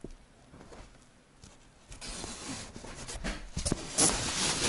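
Rustling and light knocks of a fabric-covered cardboard storage cube being unfolded and handled, starting about two seconds in and growing to a louder rustle near the end.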